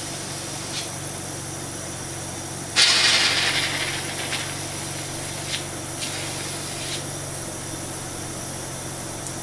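Steady hum of running equipment, with a sudden burst of hissing air about three seconds in that fades over a second or so. A few faint clicks come through.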